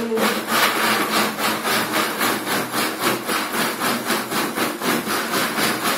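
Electric countertop blender running, grinding chillies, onions and carrot into a thick paste; its motor noise pulses evenly, about four beats a second.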